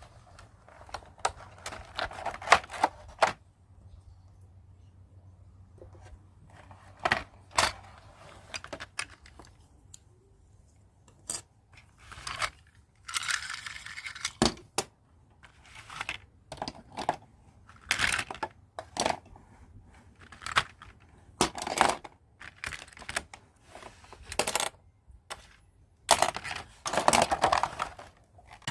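Pieces of a plastic toy hair dryer set being handled, making a run of sharp clicks and clacks with uneven spacing. A longer rustling noise comes about thirteen seconds in.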